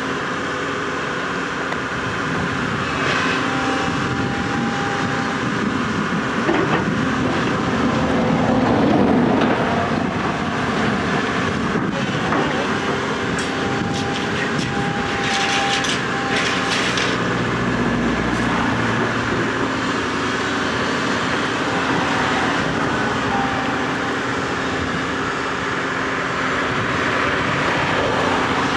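Tracked hydraulic excavators working a demolition site: the Volvo EC240B NLC with demolition shears runs steadily, its diesel and hydraulics under load, with rattling and a few thin squeals. About halfway through comes a short cluster of sharp metallic screeches and rattles.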